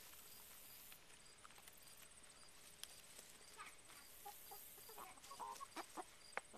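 Hens clucking faintly, with a scatter of short calls and a few sharp clicks in the second half.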